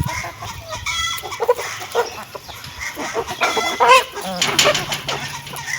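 Hens clucking, several short calls overlapping, with a few longer rising calls.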